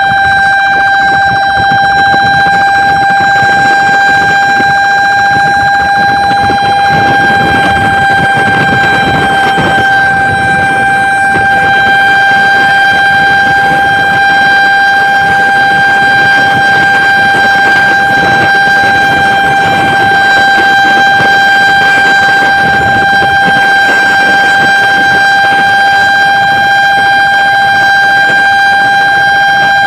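Fire truck's siren blaring from the roof-mounted horn speakers right beside the microphone, held on one steady, unwavering tone over the rumble of the truck's engine and road noise.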